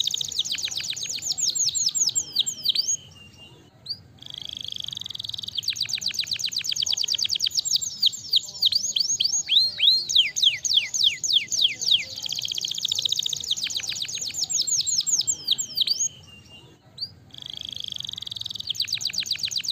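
Domestic canary singing: long phrases of fast, high trills and rapid downward-sweeping notes, with brief pauses about three seconds and sixteen seconds in.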